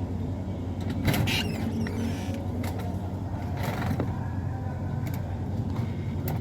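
A steady low mechanical hum, like a motor or engine running, with two brief swishing noises about a second in and near four seconds.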